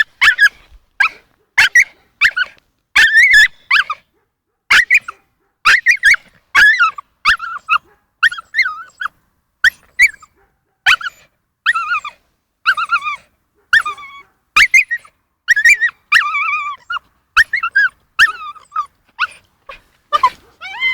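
A dog whining and yelping over and over in short high-pitched cries, about one to two a second.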